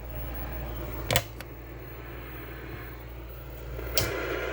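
Tube television's speaker hissing and humming as its audio comes up at full line voltage. Two sharp clicks, about a second in and near the end.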